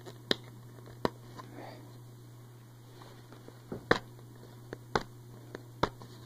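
Fingernails picking and scratching at the sticker seal on a plastic DVD case: sharp clicks and taps about once a second, the loudest about four seconds in.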